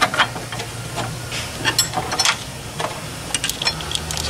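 Irregular light metallic clicks and knocks of a strut top caster/camber plate's nuts, bolts and spacer being worked by hand, over a steady low hum and hiss.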